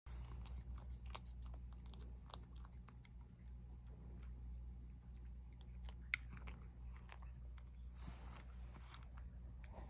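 A cat licking and chewing dry kibble from a wooden tray: faint, irregular clicks and crunches, with one sharper click about six seconds in.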